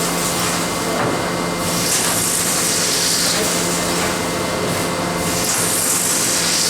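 Milling machine cutting with a high-feed milling cutter: a steady spindle hum under a hissing cutting noise that swells and fades in repeated passes a few seconds apart.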